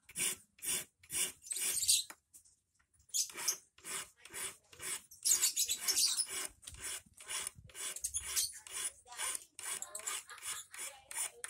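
A hand file rasps in quick, repeated strokes, about three a second, across the tip of a 2.5 mm rust-proof steel wire, shaping the point of a large eel hook. The strokes pause for about a second, starting about two seconds in.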